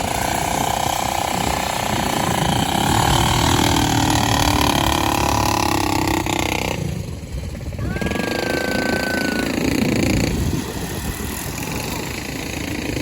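ATV engine running, under a heavy low rumble; the higher part of the sound drops away briefly about seven seconds in, and a short steady high tone follows.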